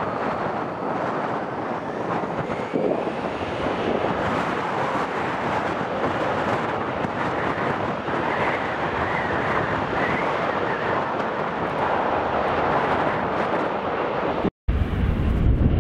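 Jet engines of a Flybe Embraer E175 (twin GE CF34 turbofans) running as the airliner taxis onto the runway: a steady rushing noise with a faint whine in the middle. Strong wind buffets the microphone, and after a brief cut near the end a heavy low wind rumble takes over.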